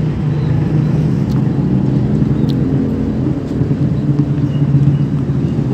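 A steady low rumbling hum, like an engine running.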